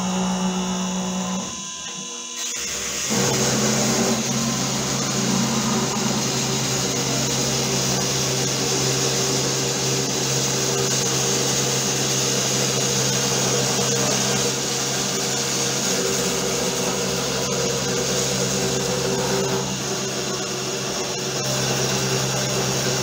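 Homemade CNC router's 775 DC spindle motor running a 2.5 mm three-flute cutter through plywood. The sound gets louder and fuller about two and a half seconds in, then runs steadily with a low hum under the cutting noise.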